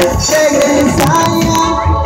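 Live band music played loud through stage speakers: a sustained, gliding melody line over steady percussion.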